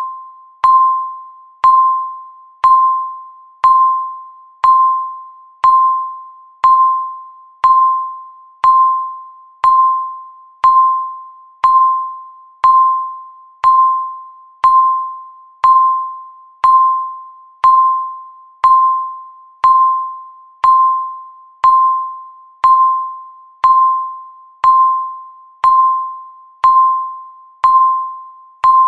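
Countdown timer beep: a single clear, bell-like tone struck once a second, each one starting sharply and fading away before the next.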